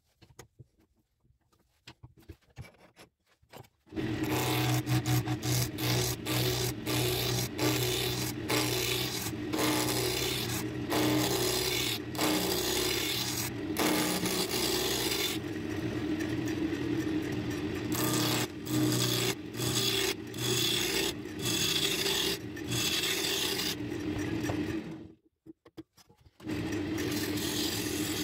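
Wood lathe running while a gouge cuts a spinning mahogany blank, roughing it from square to round: a steady rasping cut over a low hum. It starts about four seconds in, dips briefly several times as the tool comes off the wood, and stops for about a second near the end before the cutting resumes.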